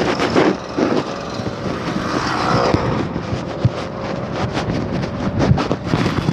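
Road traffic on a city street: cars and a bus running past, one vehicle passing close about two to three seconds in. Frequent short knocks sound over it.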